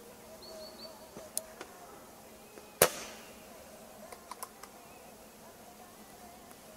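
A single sharp shot from a 6mm Dressler Flobert pistol about three seconds in, with a short echo after it, and a few faint clicks before and after.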